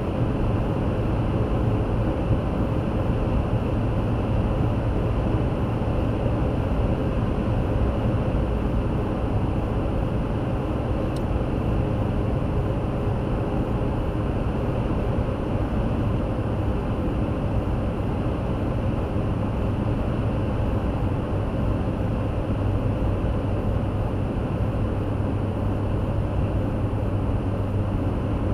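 Steady road noise from a car cruising at highway speed, tyre and engine drone heard from inside the cabin, with no change in pitch or level.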